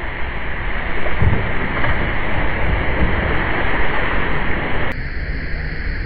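Steady rush of flowing river water. The sound changes abruptly about five seconds in, at a cut in the recording.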